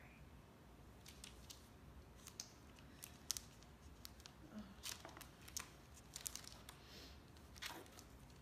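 Faint rustling and crinkling of photo prints in their sleeves being handled and lifted from a presentation box, with scattered short clicks and crackles.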